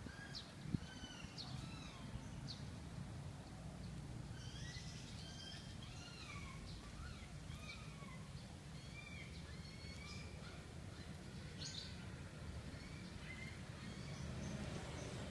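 Many small birds chirping and calling, a dense chorus of short rising and falling notes, over a low steady rumble, with one sharp knock a little under a second in.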